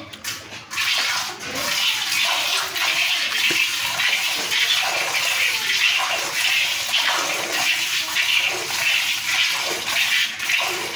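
Milk squirting from a cow's teats into a container as the cow is milked fast by hand, in quick even spurts of about two a second.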